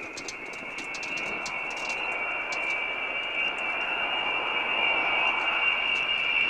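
Boeing B-52 Stratofortress on landing approach with gear down, its eight jet engines giving a high, steady whine that grows steadily louder as the bomber comes closer.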